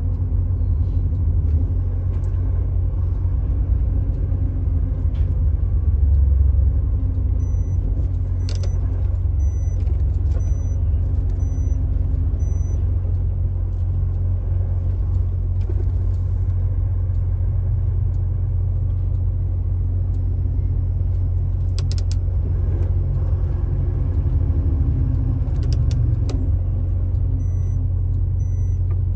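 Steady low rumble of a vehicle driving on a highway: engine and tyre noise at a constant pace. A faint high beep repeats about once a second in two stretches.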